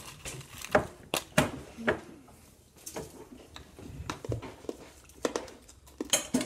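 Scattered sharp clicks and knocks of small objects being handled on a table, with brief faint bits of children's voices.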